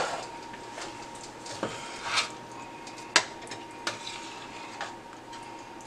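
Metal ladle stirring chili in a stainless steel pot, with scattered clinks and scrapes against the pot's sides; the sharpest clink comes about three seconds in.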